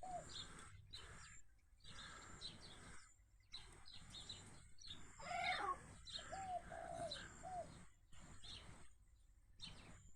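Sparrows chirping repeatedly in short high notes, faint, with a few lower arched calls mixed in and one louder call about five seconds in.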